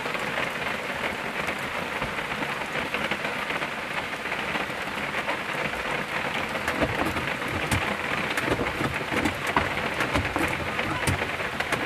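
Heavy rain beating on a vehicle's windshield and body, a dense steady patter with many sharp individual drop hits. About halfway through, a low rumble joins in and the drop hits grow louder.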